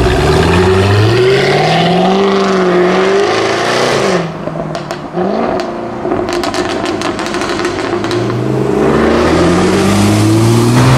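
Jaguar F-Type R's supercharged V8 revving up with a rising pitch and holding high revs. It then drops off the throttle, and the exhaust crackles and pops in a rapid string of sharp bangs on the overrun. About two seconds later it revs up again with a rising pitch.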